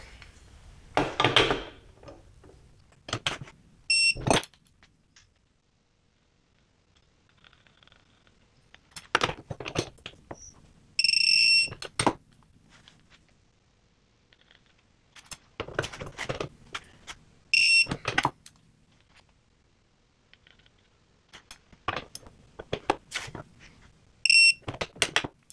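Digital torque adapter beeping four times as the wrench reaches its preset torque on each bolt; the second beep is held about a second, the others are short. Bursts of clicking from the wrench being worked come just before each beep.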